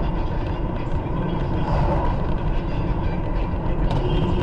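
Steady engine and road noise of a car driving, heard from inside the cabin by a dash cam.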